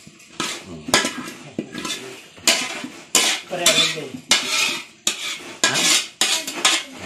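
Metal spoon scraping thick cooked laing out of a metal wok into a stainless steel tray, with repeated scrapes and clanks of metal on metal, about two a second, growing louder a few seconds in.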